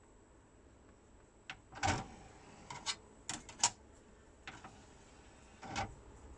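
A string of short mechanical clicks and clunks, about eight in four seconds, from a Pioneer DV-344 DVD player's tray and disc-loading mechanism as a disc is loaded.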